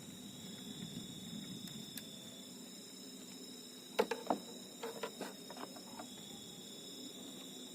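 Night insects, crickets among them, trilling in steady high-pitched tones, with a cluster of short knocks and clicks about four to five seconds in.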